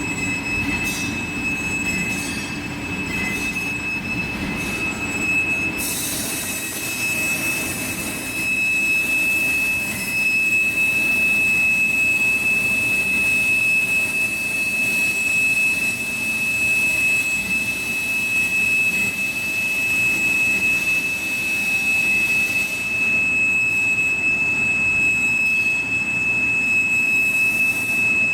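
Machine tool cutting a block of AISI D2 tool steel: a steady high-pitched whine runs throughout over a hiss, which grows louder and brighter about six seconds in and eases a few seconds before the end.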